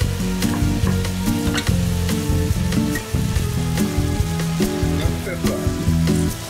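Eggplant, mushrooms and minced meat sizzling as they fry in a frying pan, stirred with a wooden spatula that gives short scraping clicks against the pan. Background music plays throughout.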